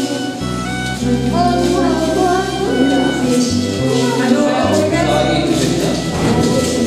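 Music: a song with a singing voice over a bass line.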